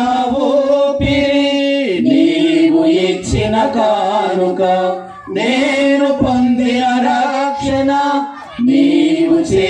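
A man singing a Telugu Christian hymn through a microphone and PA, holding long notes that glide between pitches, over a steady low tone.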